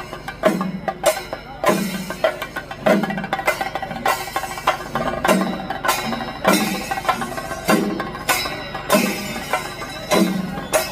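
Background music with a steady percussive beat: drum strokes about once a second over a sustained instrumental bed.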